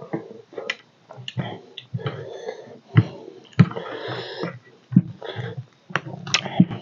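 Close, wet eating sounds: chewing and lip smacking with many sharp mouth clicks, and fingers squishing curry-soaked rice against a steel plate.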